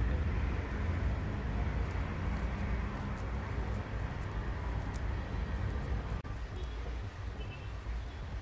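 Steady low background rumble, with a few faint soft ticks from hands pressing stuffing into a pointed gourd (parwal).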